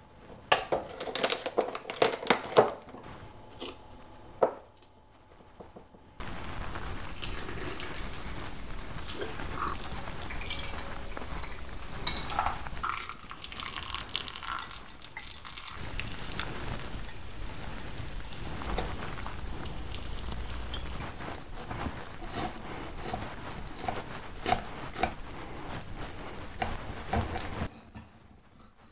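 Hot water poured from a gooseneck kettle onto coffee in a glass pour-over dripper: a steady pouring hiss that starts abruptly about six seconds in, with light ticks and drips through it. Before it come sharp taps and clicks as the coffee is handled.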